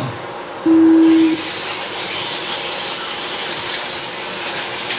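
A single steady electronic beep lasting about half a second, the race-start tone, followed by the steady high-pitched hiss and whine of a pack of electric 4WD RC buggies running on the dirt track.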